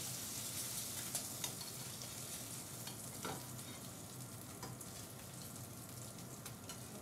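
Fishcakes sizzling as they shallow-fry in hot oil in a stainless steel frying pan, with a few short clicks and scrapes of a slotted spatula against the pan as they are turned over.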